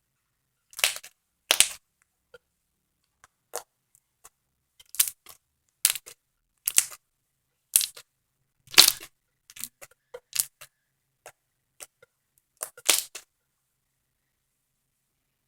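Slime being pressed and poked in the hands, its trapped air pockets popping: about ten sharp pops at irregular spacing, with a few fainter clicks between them.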